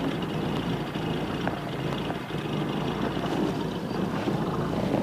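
Safari vehicle's engine running steadily, a continuous low hum heard from inside the vehicle.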